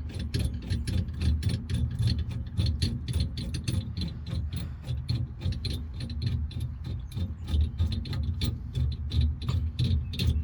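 Ratchet wrench clicking in a quick, even rhythm, about four or five clicks a second, as the bolts of a steering wheel puller are tightened, over a steady low hum.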